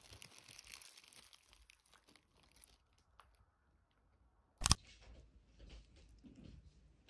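Soft crinkling and rustling of a disposable plastic glove and takeout containers being handled, with one sharp, loud click a little before five seconds in.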